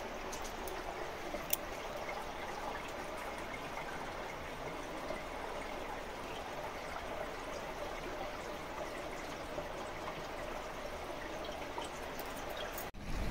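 Spring water trickling steadily out of cracks in the rock into a shallow pool.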